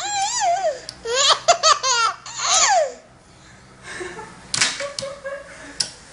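A baby laughing: high, quick runs of giggles and belly laughs over the first three seconds, ending in a falling squeal, then a quieter stretch with a few soft taps.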